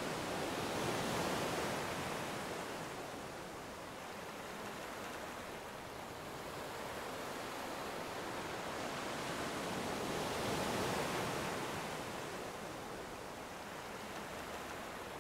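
Sea waves washing ashore: a steady rush of surf that swells twice, about ten seconds apart.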